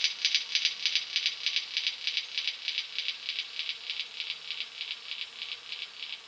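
A steady, rapid, high-pitched rattle of about eight pulses a second, slowly fading.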